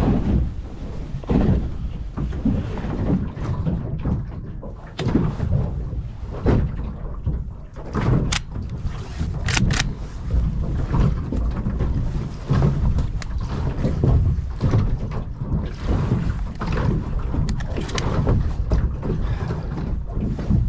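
Water slapping and lapping against the hull of a low layout boat sitting on choppy water, a steady low rumble, with a few sharp clicks and knocks scattered through.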